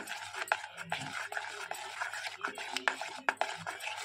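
Continuous rustling with frequent small clicks and taps, the sound of hands handling things at close range.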